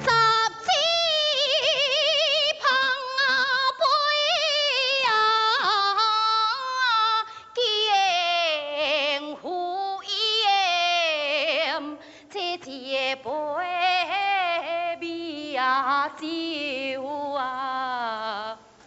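A woman singing a traditional Chinese opera aria: long, held notes with a strong, wide vibrato, phrase after phrase with short breaths between.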